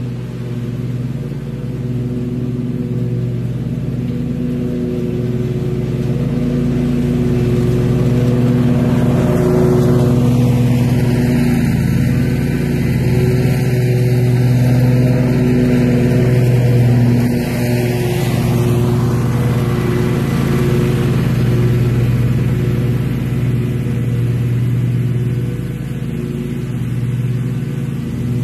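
Bob-Cat XRZ Pro RS zero-turn mower's engine running steadily with its deck cutting tall, thick grass. It grows louder as the mower passes close by in the middle, then eases off as it moves away.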